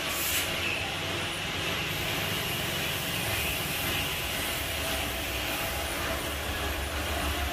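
Compressed-air spray-painting equipment at work on a truck body: a steady hiss with a low rumble underneath, and a short sharper hiss right at the start.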